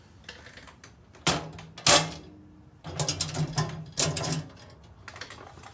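Latch of a sheet-steel lathe cabinet door clacking open, two sharp clacks about half a second apart, followed by the metal door rattling and clanking as it is swung open.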